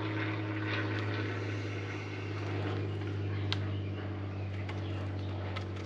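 A steady low machine hum with several evenly spaced overtones, unchanging throughout, with two faint sharp clicks, the second near the end.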